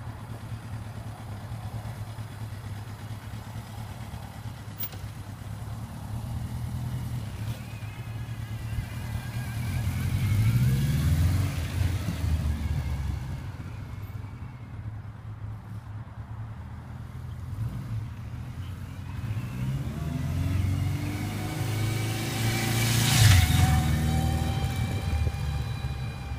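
Car running, with a faint high-pitched squeal from the front wheel over the engine and road noise. It is louder in two swells, about ten seconds in and again near twenty-three seconds.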